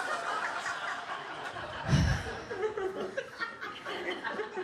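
Audience laughing and chuckling in response to a joke, many voices at once, with a short low thud about two seconds in.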